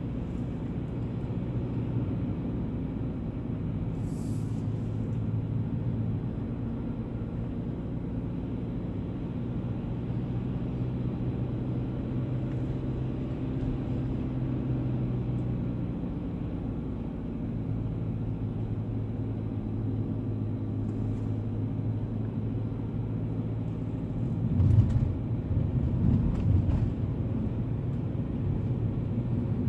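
Car engine and tyre noise heard from inside the cabin while driving, a steady low hum. Near the end come a few louder thumps and bumps, the loudest about 25 seconds in.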